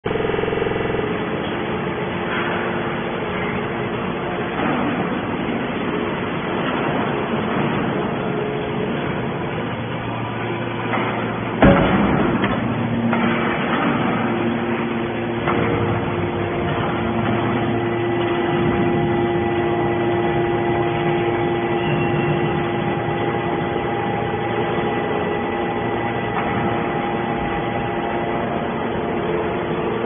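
Horizontal hydraulic metal baler running while pressing scrap steel shavings: a steady machine hum from its hydraulic power unit, with a held whine through the later part as the rams work. One sharp bang comes a little over a third of the way in.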